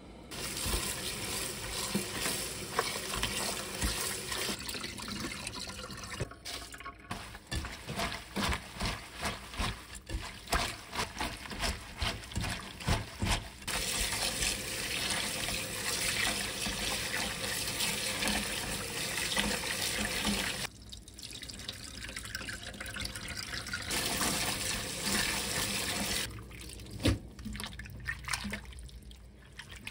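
Tap water running into a stainless steel bowl while hands rub, squeeze and splash Chinese mallow (aeuk) leaves, scrubbing them to wash out the grassy smell until the rinse water runs clear. There is a stretch of rapid splashing and squelching early on, and the water noise drops away for a few seconds about two-thirds of the way through before returning.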